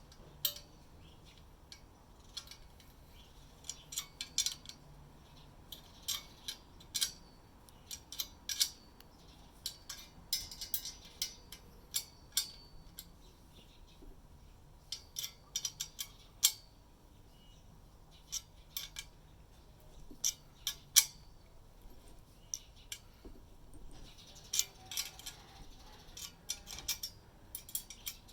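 Irregular light clicks and clinks of small hard parts being handled, coming in clusters with short pauses between.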